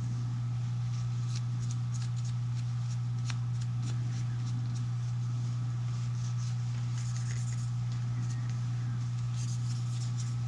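A cloth cleaning patch wiping a rifle bolt, with faint scattered scrapes, rustles and small clicks, over a steady low hum.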